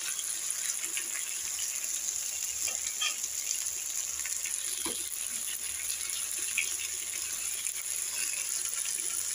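Eggplant slices frying in a little oil in a pan: a steady sizzling hiss, with a couple of faint light taps.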